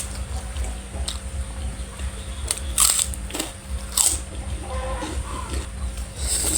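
Close-up eating sounds: chewing, with a few sharp crunches a second or more apart.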